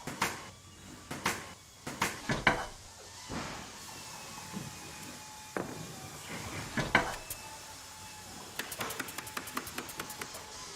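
Wooden workpieces knocked and handled in a furniture workshop: a string of separate sharp knocks, then a quick run of rapid clicks near the end.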